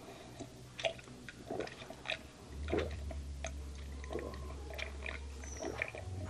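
A man drinking from a glass in gulps: a string of small, scattered swallowing and wet mouth sounds.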